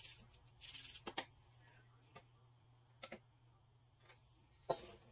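Faint, scattered clicks and light taps from gloved hands working crumbly bath bomb mixture in a stainless steel mixing bowl, with a brief soft rustle near the start.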